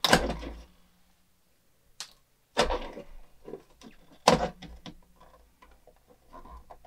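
Hard plastic parts of a toy dishwasher knocking and clicking as they are handled and its buttons are pushed out from the back: a few sharp knocks, at the start and about two, two and a half and four seconds in, with faint rubbing between them.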